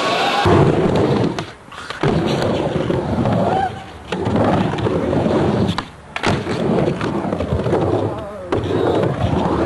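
Skateboard wheels rolling in several short runs, each breaking off abruptly, with a few sharp clacks of the board.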